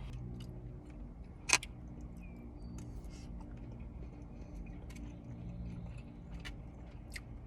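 Takeout food containers being handled: scattered light clicks and taps, with one sharp click about a second and a half in, over a low steady hum.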